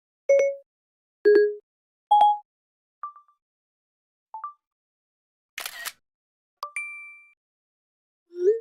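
A run of short iPhone iOS system alert and interface sounds, played one after another with silence between them. There are three brief electronic blips, two faint ticks, a short swish, a click followed by a tone ringing for about half a second, and a rising blip at the end.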